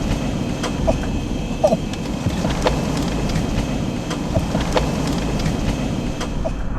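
Jeep CJ on a rough forest trail in strong wind: a steady low rumble with scattered sharp knocks and rattles.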